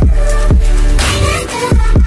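Background electronic music with a heavy, sustained bass and deep bass hits that drop in pitch, about one a second.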